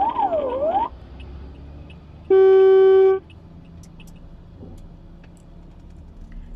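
An electronic siren-like alarm wailing up and down about once a second inside a car cabin cuts off about a second in. A little past two seconds comes one loud, steady electronic beep lasting about a second, followed by the low hum of the cabin with a few faint clicks.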